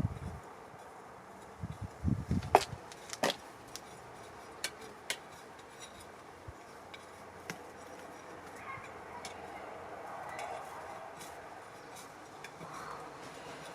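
Knocks and clicks from handling during potato harvesting. The loudest is a cluster of sharp knocks with dull thuds about two to three and a half seconds in, followed by scattered lighter ticks.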